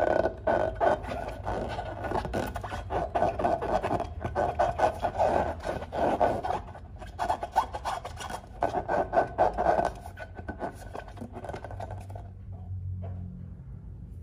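Hands rubbing and squeezing a filled latex balloon: a rapid, uneven rubbery rasping that comes in waves, with a short lull midway, and dies down about ten seconds in.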